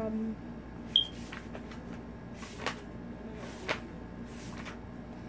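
Pages of a hardcover book being leafed through: a few brief papery swishes, with a sharp short click about a second in.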